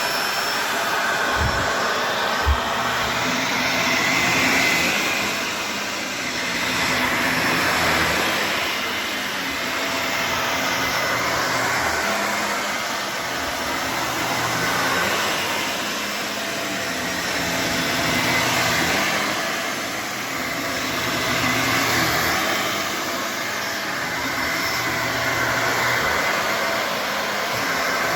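Shark Navigator Lift-Away upright vacuum running on its carpet setting over a rug, its steady motor and brush roll noise rising and falling every few seconds as it is worked back and forth. A brief knock comes about two and a half seconds in.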